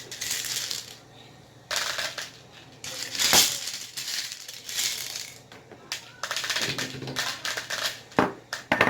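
Slime being squeezed and worked by hand, making crackly squishing noises in a series of irregular bursts, loudest about three seconds in.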